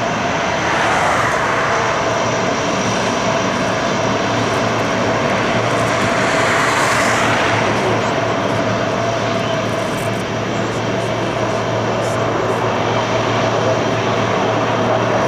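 Lockheed C-130 Hercules turboprop engines running loudly and steadily with a constant whine, swelling slightly twice.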